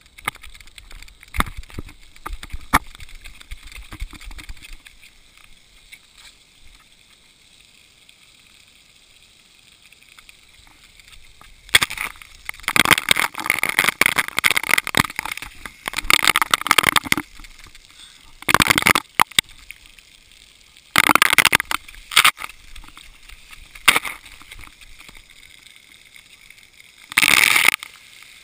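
Splash-pad water jets spraying onto a GoPro's waterproof housing, heard as loud bursts of rushing, splashing water: a long one a little before halfway, then several shorter ones. Before that, knocks and thumps of the camera being handled.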